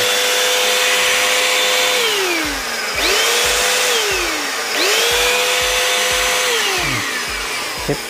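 Jaco EZ Hoover Turbo JC333 handheld vacuum cleaner's motor on its test run after new bearings were fitted, switched on and off several times. It runs at a steady high whine, winds down with a falling pitch about two seconds in, starts again at about three seconds, stops briefly, restarts near five seconds and winds down again near the end.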